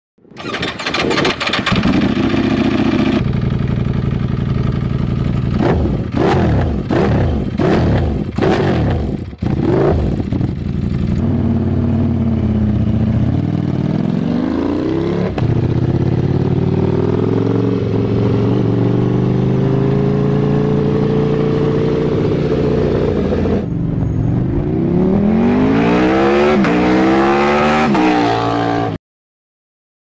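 Ducati Panigale V4's V4 engine through a Termignoni full exhaust system. It holds steady revs, then gives a quick run of sharp throttle blips, then rides off with the pitch climbing and dropping through the gears in several rising sweeps. It cuts off abruptly.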